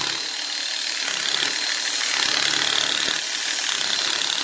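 Ratchet wrench with a 10 mm socket on an extension, clicking steadily without a break as it backs out a bolt holding the radiator cooling fan.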